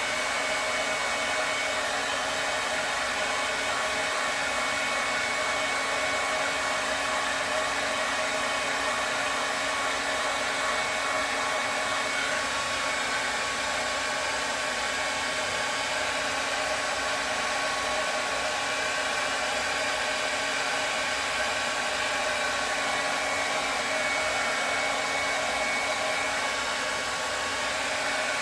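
Handheld hair dryer running steadily on a wig's glued lace front: an even airy hiss with a steady motor whine.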